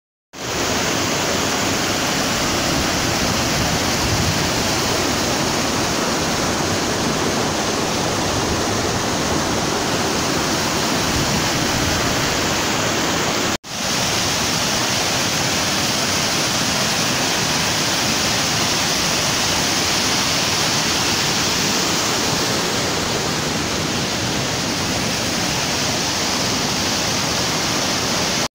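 Steady rushing of water from a rocky mountain stream's waterfalls and rapids, cut off briefly about halfway through before it resumes.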